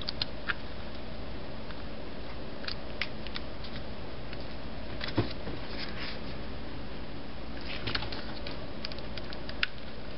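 Scattered soft clicks and light taps of small adhesive foam dots and cardstock being handled and pressed down by hand, over a steady low background hum.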